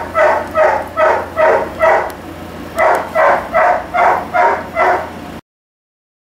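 A two-and-a-half-week-old Weimaraner puppy crying in a steady run of short, high yelps, two or three a second, with a brief pause about two seconds in. The cries cut off suddenly near the end.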